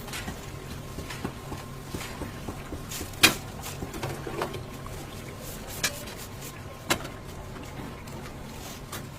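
A few sharp knocks and clinks over a steady low hum, the loudest about a third of the way in and two smaller ones a little past the middle.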